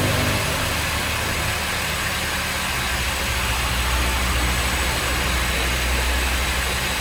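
Honda Civic 2.0 four-cylinder engine idling steadily.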